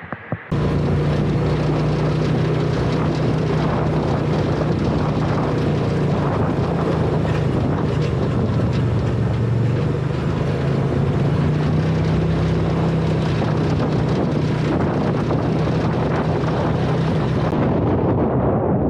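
A vehicle engine running steadily while driving, with wind buffeting the microphone; it cuts in suddenly about half a second in.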